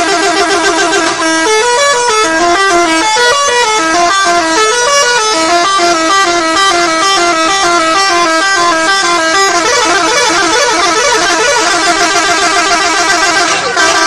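Indonesian bus 'telolet' musical horn, a set of air horns playing a fast tune of notes that step up and down over and over. It breaks off suddenly just before the end.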